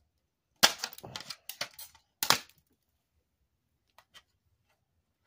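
A sharp snap as a small part pops off the TV's circuit board and flies off, followed by a quick run of small clattering knocks as it lands and bounces, then another sharp knock about a second and a half later. Two faint ticks come near the end.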